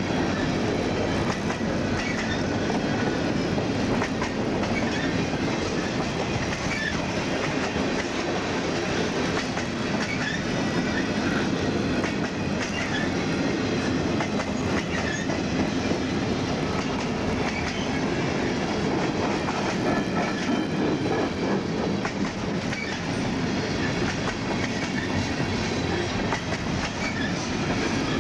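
Freight train cars rolling past: a steady rumble with wheels clacking over the rail joints and faint, brief wheel squeals.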